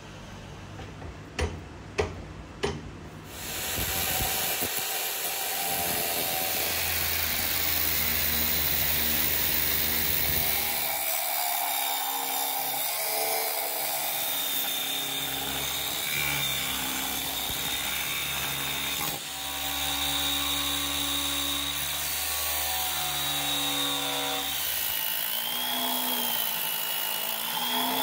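Three sharp knocks, then a power tool starts up and runs under load for the rest, a dense grinding noise with a motor whine whose pitch wavers as the load changes and briefly eases twice.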